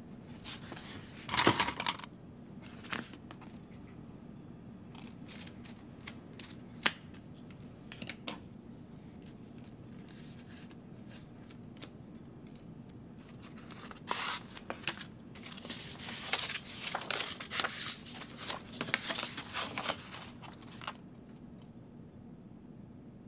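Paper rustling and crinkling in irregular bursts, with a sharp tearing burst about a second in and a longer stretch of handling from about fourteen to twenty-one seconds in.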